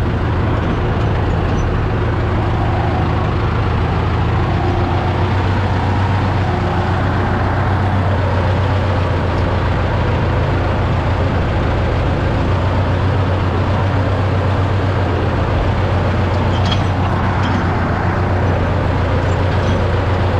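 A motor vehicle's engine running at a steady low drone while driving along.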